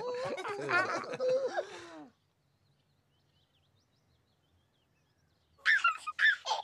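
High, childlike voices babbling and giggling for about two seconds, then a pause of near silence. Near the end comes a baby's giggle in a few short, loud bursts: the Sun Baby laughing.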